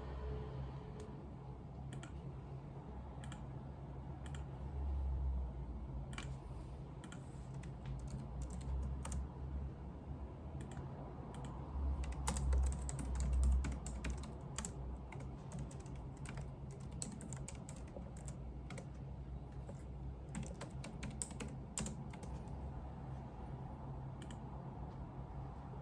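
Typing on a computer keyboard: irregular runs of key clicks, busiest through the middle, over a steady low hum that swells twice.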